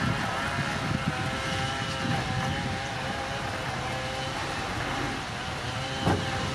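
Diesel engine of heavy earthmoving machinery running steadily under a low rumble, with a single sharp clank near the end.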